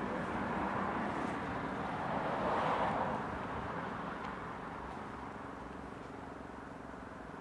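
E57 electric motor siren coasting down after sounding the fire alarm, leaving a faint low hum. A car passes, loudest about two to three seconds in.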